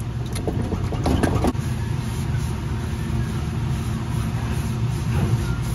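Tap water running steadily into a stainless steel sink while small metal hand drill parts are scrubbed with a scouring pad. A few clinks of the parts against the sink come in the first second and a half.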